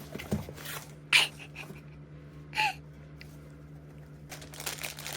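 Packaging being opened and handled: a few short, sharp rustles or rips, the loudest about a second in, then softer rustling near the end.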